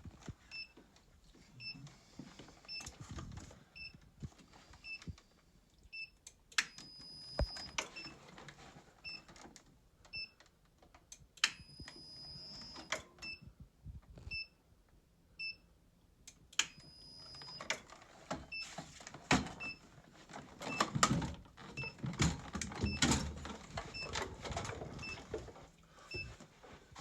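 Short electronic beeps repeat evenly, about three every two seconds, under intermittent clicks, knocks and metallic rattling of hand tools working a fitting off a Stannah 260 curved stairlift rail. The scraping and rattling gets busier partway through.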